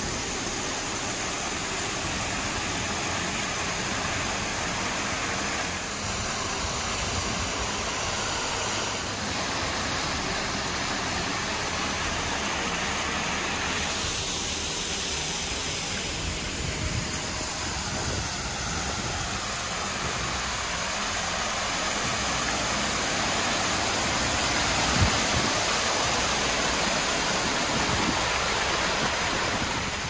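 Small creek waterfall pouring steadily over stone ledges, an even rushing of water that swells a little in the last few seconds, with a brief tap near the end.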